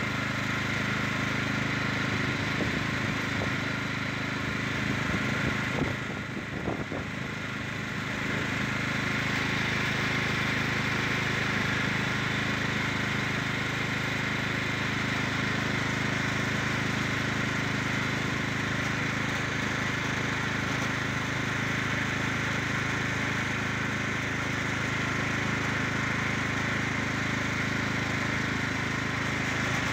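Small vehicle engine running steadily at an even pace, with a brief dip in loudness about six to eight seconds in.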